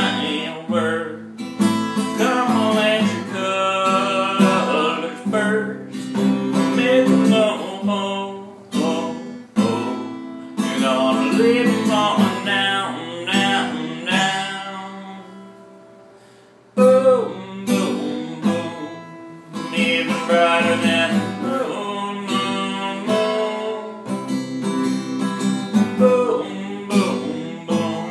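Acoustic guitar strummed as song accompaniment, with singing over it. About fifteen seconds in the playing dies away to a brief pause, then comes back in suddenly.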